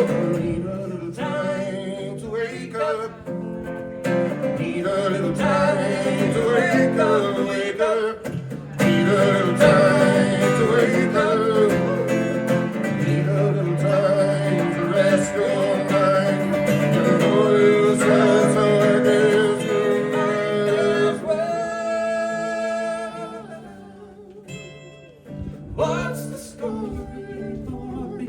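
Acoustic bluegrass band playing, with guitar and other plucked strings to the fore. The music drops away about three-quarters of the way through, then picks up again.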